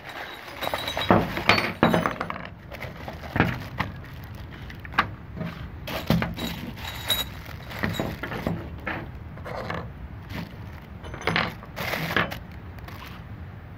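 Plastic-wrapped accessories and bags of small parts rustling and clinking as they are handled and set down, in irregular short strokes.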